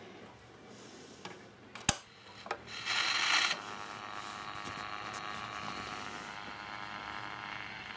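Home-built three-transistor AM radio from a Philips EE2003 kit hissing and buzzing steadily through its small speaker. A sharp click comes about two seconds in, followed by a short louder rush of noise.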